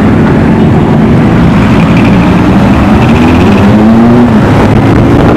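Motorcycle engine running in traffic, its pitch rising as it revs up from about halfway through, then falling away, under loud road and wind noise.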